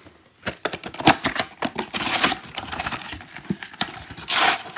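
Cardboard trading-card box being handled and opened by hand: an irregular run of light taps and knocks, then a louder rustling burst about four seconds in.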